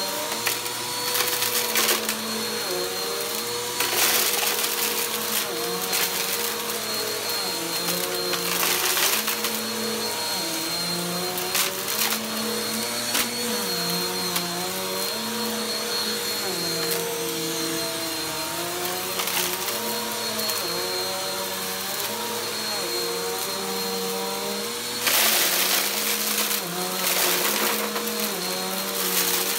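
Bagless upright vacuum cleaner running on carpet, its motor pitch dipping and rising over and over, with several bursts of crunching and crackling as lint and small debris are sucked up, the loudest near the end.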